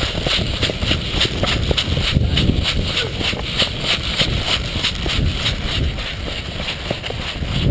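Wind rumbling on the microphone with regular rustling thuds about three times a second: the steps of someone running while carrying the camera.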